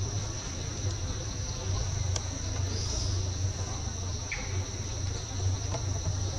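Steady high-pitched chorus of insects in forest, over a constant low rumble, with a single sharp click about two seconds in.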